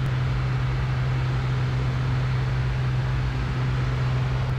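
Steady in-flight drone of a Cessna T210N Centurion's turbocharged six-cylinder Continental engine and propeller, heard through the cockpit intercom audio feed, with a constant low hum and even noise.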